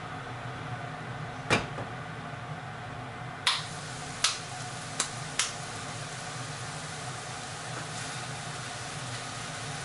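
Steady low kitchen hum with five sharp clicks and knocks: one about a second and a half in, then four more in quick succession from about three and a half to five and a half seconds in.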